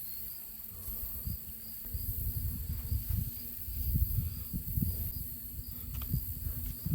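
Insects chirring steadily at a high pitch, over an irregular low rumble that swells and fades.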